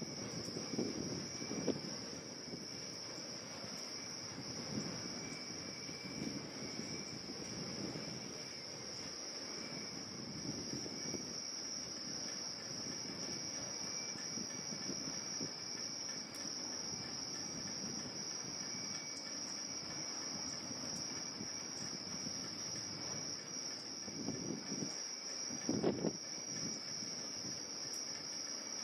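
Steady evening insect chorus, a continuous high-pitched trill, over low, uneven rumbles, one louder near the end.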